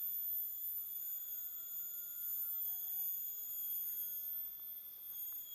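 A steady high-pitched whine with several overtones, unchanging throughout, over faint low background noise.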